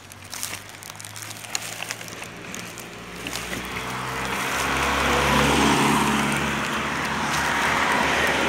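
A car passing on the road close by, its tyre and engine noise growing louder from about three seconds in, loudest past the middle and still strong at the end.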